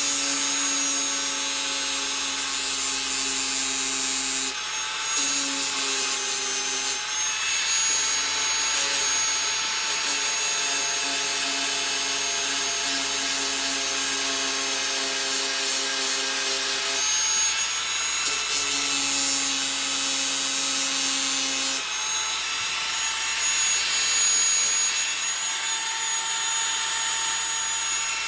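Electric power tool running continuously with a steady motor whine over a hissing, grinding noise, its pitch shifting a few times as it works.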